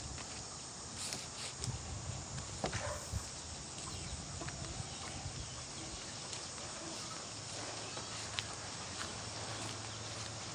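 Steady background noise with a few scattered light clicks and taps, and a low hum that comes in about seven seconds in.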